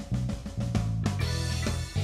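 Background music: an instrumental track with guitar over a steady drum-kit beat.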